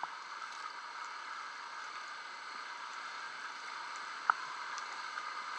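Steady churning and bubbling of water at the hull of a swamped boat being raised with air lift bags, with a single sharp knock about four seconds in.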